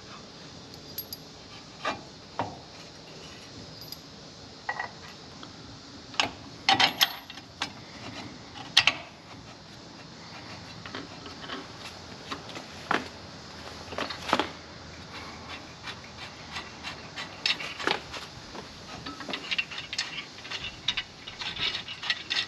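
Metal trailer-step bracket and its bolts and washers clinking and scraping against a metal step tube as the step is fitted and bolted on. The sharp clicks are scattered, with a few loud knocks in the middle and quicker small rattling near the end.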